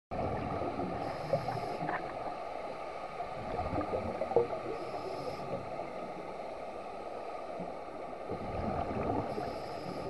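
Muffled underwater noise picked up by a submerged camera, with crackling and gurgling from scuba divers' exhaled bubbles that swells a few times.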